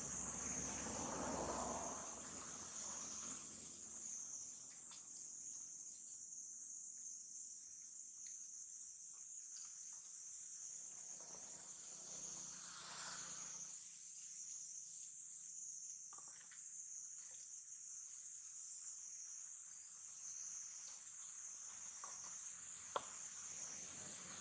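Steady high-pitched insect chorus, with a few faint clicks and crinkles of a plastic water bottle being chewed by a young macaque; one sharper click comes near the end.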